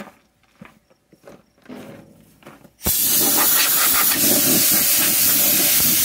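Compressed-air blow gun blasting hay chaff and dust out of a baler knotter: a loud, steady hiss that starts abruptly about three seconds in, after a few faint handling clicks.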